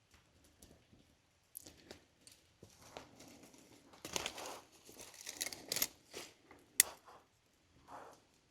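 Campfire crackling: irregular snaps and rustling crackles of burning wood, thickening for a couple of seconds in the middle, with one loud sharp pop near the end.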